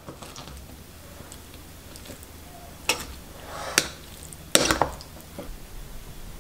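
Metal spoon stirring salad in a bowl, clinking sharply against the bowl three times about a second apart in the middle of the stretch.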